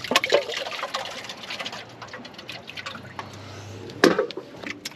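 Water trickling and splashing, with a sharper splash about four seconds in.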